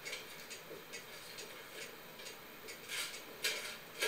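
Light clatter of dishes and utensils being handled at a kitchen counter: scattered small clicks, with a few louder ones about three seconds in.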